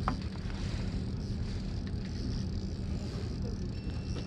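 Fishing boat's engine running with a steady low hum, under a haze of wind and sea noise.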